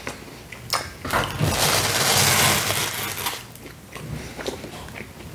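Close-miked chewing of pizza with a few wet mouth clicks. About a second and a half in comes a loud rustling scrape lasting nearly two seconds, as a slice of pizza is pulled free of the others and dragged across the cardboard box.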